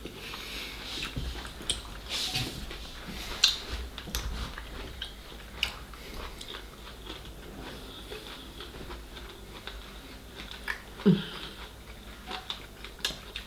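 Close-up eating sounds during a seafood meal: chewing and biting, with scattered small clicks and crackles.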